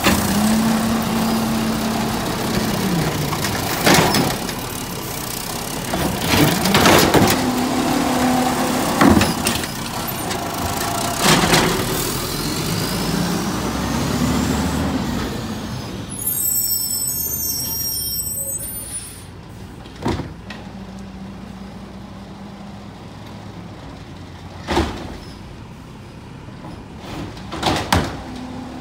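Garbage truck at work: its engine hums and drops in pitch several times, with sharp bangs every few seconds. It becomes quieter about two-thirds of the way through.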